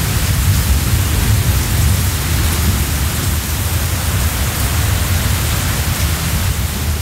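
Typhoon wind sound effect: a loud, steady rush of storm wind with a deep rumble underneath.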